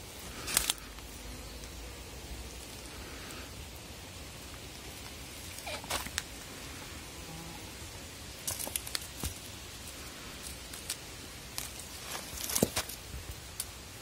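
Kitten scuffling on dry grass and dirt as it bats at a dangling string toy: scattered short rustles and scratches over a steady outdoor hiss, the sharpest just after the start and near the end.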